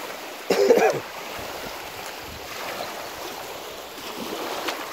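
Small waves lapping and washing over a sandy, stony shoreline, a steady wash of water. A short loud sound breaks in about half a second in.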